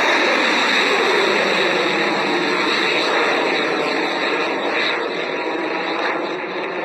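Rocket engines roaring at liftoff: a loud, steady rushing roar that eases slightly toward the end.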